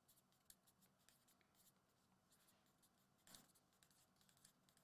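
Near silence, with faint scratching of a pen writing on paper.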